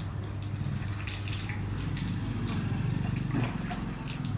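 Water running and splashing from a tap or hose during a dog's bath, over a steady low hum.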